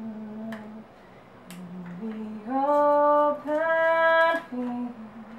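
A woman singing to herself, unaccompanied, with quiet low notes at first, then two long held notes from about halfway through.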